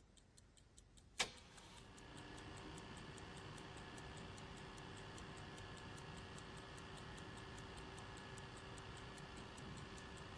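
Faint, quick, even clock ticking over a low steady hum, after a single sharp click about a second in.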